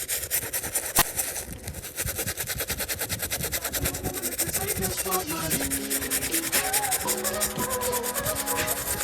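A brush scrubbing a sneaker with rapid back-and-forth strokes.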